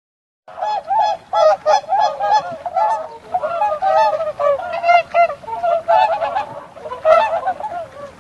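A swan honking: a long series of short honks, several a second, starting about half a second in.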